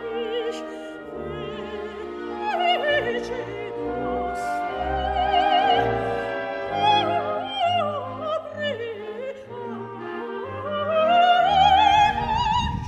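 Operatic singing with heavy vibrato over orchestral accompaniment, the voice climbing to a high held note near the end.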